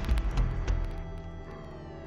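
Background music: a few heavy low hits in the first second that fade away, followed by high tones sliding downward near the end.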